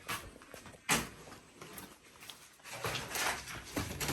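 Two soft knocks about a second apart, then a short stretch of rustling handling noise near the end.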